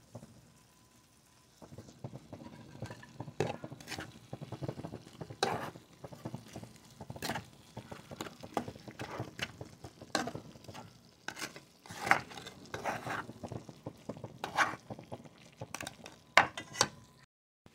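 A utensil stirring and scraping chicharrones in tomato-and-chile sauce in a frying pan: irregular clinks and scrapes against the pan, with a low sizzle underneath.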